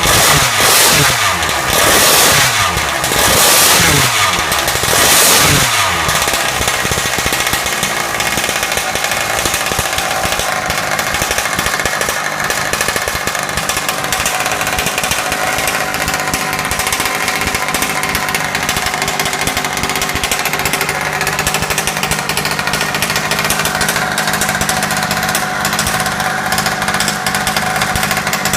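Modified Revolver 32cc two-stroke engine in a 1/5-scale Baja RC car, blipped four times in quick succession and then settling into a steady idle.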